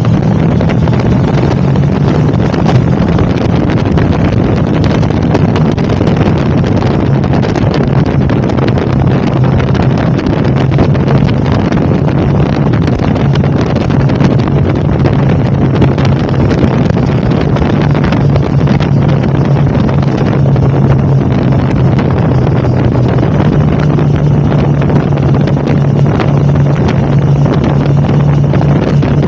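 KTM 1290 Super Adventure's V-twin engine running steadily on the move, heard from on board the motorcycle with wind buffeting the microphone.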